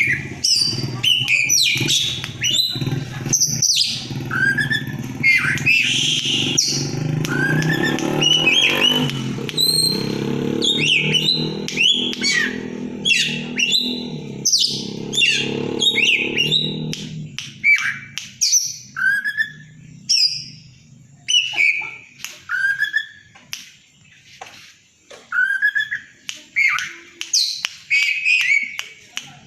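Oriental magpie-robin (kacer) singing a rapid, loud run of chirps, short whistles and harsh notes in the 'konslet' style. A low vehicle-like rumble sits underneath and fades out about two-thirds of the way through.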